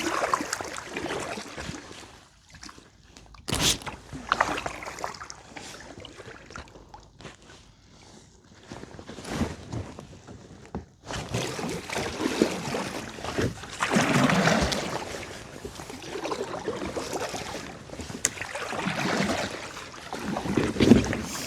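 Kayak paddle strokes through calm lake water, with splashing and water trickling off the blade. The first half is quieter, with one sharp knock a few seconds in; from about halfway the strokes come as regular swells every couple of seconds.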